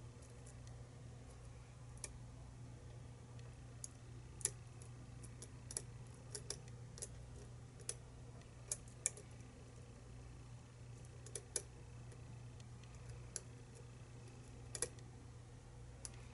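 Faint, irregular metallic clicks of a lock pick and tension wrench working the pin stack of a challenge lock, over a low steady hum.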